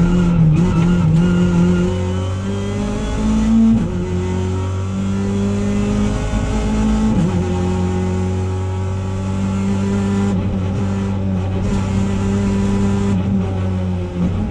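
Opel Adam FR2 rally car's engine heard from inside the cockpit under hard acceleration, revs climbing and dropping sharply at two quick upshifts, about three and a half and seven seconds in, from second up to fourth gear. It then holds high revs in fourth gear.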